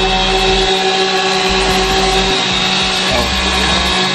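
A loud, steady mechanical whirring hum with a constant pitched drone, heard inside a car, under a deep rumble that cuts in and out every second or so.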